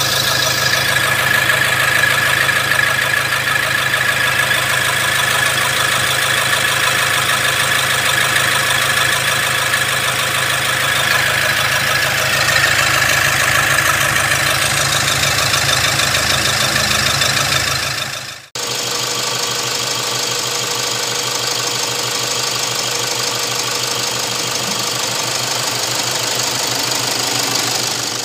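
Toyota Hilux Vigo 3.0 diesel (1KD-FTV four-cylinder common-rail turbodiesel) running steadily at idle after its overhaul. The sound drops out for an instant about two-thirds through and picks up again, a little thinner in the low end.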